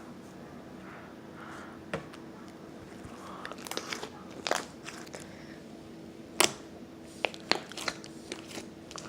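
Slime being played with by hand, giving irregular crackling clicks and pops, with one sharper pop about two-thirds of the way through.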